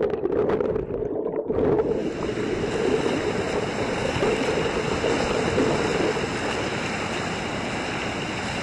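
Rushing whitewater of a river rapid. It is muffled for the first couple of seconds, then opens into a steady, full rush of churning water.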